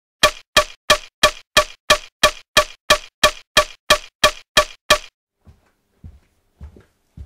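A clock ticking: about fifteen loud, evenly spaced ticks, roughly three a second, that stop about five seconds in. Then come a few fainter thumps about half a second apart.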